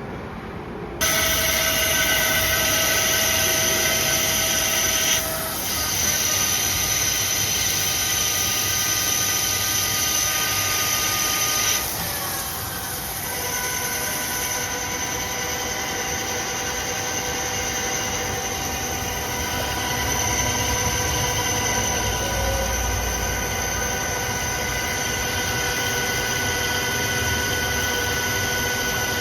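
A CNC machine running, with a steady high whine of several tones over a hiss. It starts abruptly about a second in, and the tones shift about 5 and 12 seconds in.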